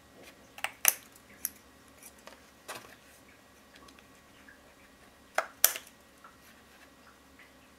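Scissors snipping the frayed edges of stitched cotton fabric strips: a few short, separate snips, the loudest about a second in and two more close together about five and a half seconds in.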